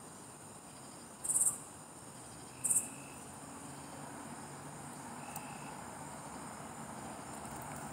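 Night insects, crickets, chirring in a steady high-pitched chorus, with two louder, short buzzy calls from a nearby insect about a second and a half and about three seconds in. A low hum of distant traffic slowly grows underneath in the second half.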